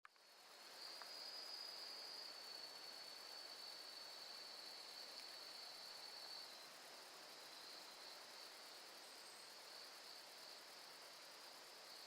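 Faint insect song: a steady high trill that stops about six and a half seconds in, with a quieter pulsing trill continuing behind it, over a light hiss.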